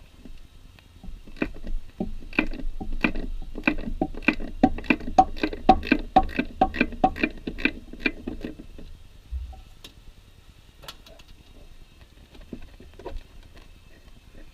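Socket ratchet clicking steadily, about three clicks a second, as a starter mounting bolt is backed out, stopping after about eight seconds; a few scattered metal clinks follow.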